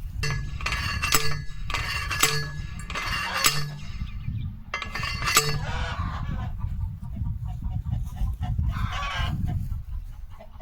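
Chickens clucking and squawking in short calls, about six of them in the first five seconds or so, over a steady low rumble.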